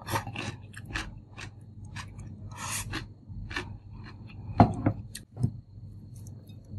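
Small taps, clicks and rustles of tableware and food being handled on a table, with two louder dull knocks of a ceramic rice bowl being set down soon after halfway.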